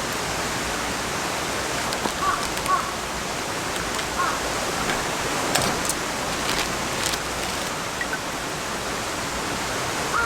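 Steady rush of flowing water, with a few short sharp clicks about halfway through and faint small chirps.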